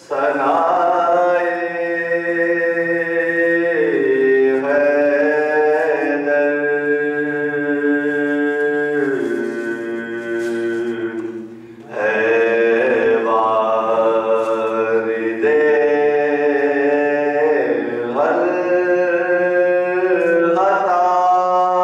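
A man's solo voice chanting into a microphone in long, drawn-out melodic phrases, with a short pause about twelve seconds in.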